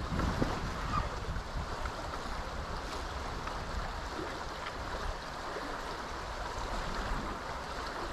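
Steady wind noise rumbling on the microphone over the rush of fast-moving channel current.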